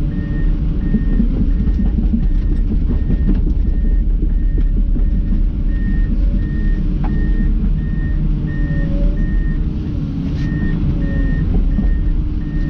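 Komatsu PC290 excavator's diesel engine and hydraulics running under load while digging, heard from inside the cab. A high beeping alarm sounds about twice a second, stopping and starting.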